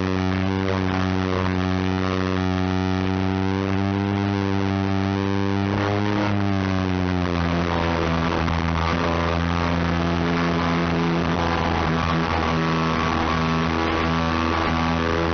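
Electric motor and propeller of an FPV model aircraft running with a steady buzzing drone. The pitch steps up at the start, then drops a little about six or seven seconds in as the throttle is eased back.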